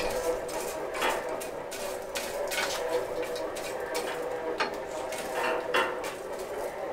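Coal forge fire with scattered sharp clinks and crackles over a steady hum, as the square steel bar is put back into the coals for another heat.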